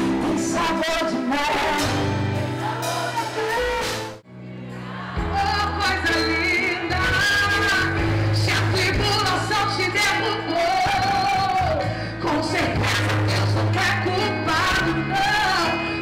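Live gospel praise music from a stage band, with a singer's voice over held bass notes. The sound drops out briefly about four seconds in, then the music carries on.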